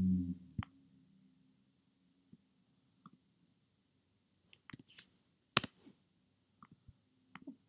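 A few sparse, sharp clicks from a computer mouse and keyboard, with near quiet between them; the loudest click comes about five and a half seconds in.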